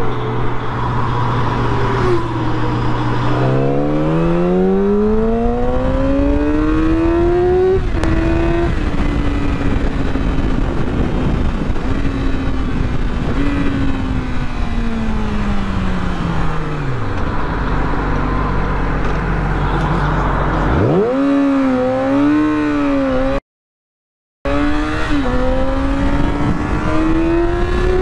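Sport motorcycle engine accelerating hard, its pitch climbing in a long rise and dropping at a gear shift about eight seconds in, then falling away as the bike slows to a low steady note. A sharp rev follows near the end, the sound cuts out for about a second, and the engine climbs again, all over steady wind noise on the helmet microphone.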